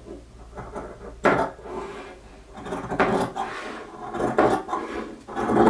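Fabric scissors cutting through heavy wool fabric: four long cuts, about a second and a half apart, each a rasping crunch of the blades closing through the thick cloth.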